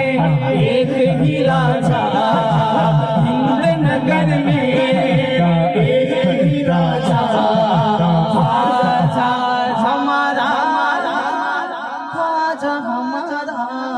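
A man singing an unaccompanied Urdu devotional manqabat into a microphone, with long gliding, ornamented phrases. The singing thins out and gets a little quieter after about ten seconds.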